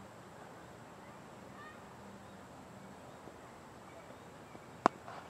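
Steady outdoor hiss, then near the end one sharp, loud crack as the cricket ball reaches the batsman at the crease, followed by faint voices.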